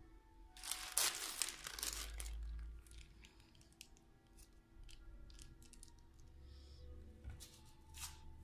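Clear plastic film being pulled out and tearing with a loud rip about a second in, lasting over a second, then softer crinkling and small clicks as it is smoothed over a paper sheet.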